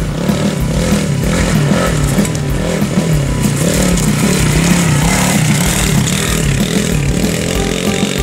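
Small dirt bike engine riding past, its pitch rising and falling again and again as the throttle is worked.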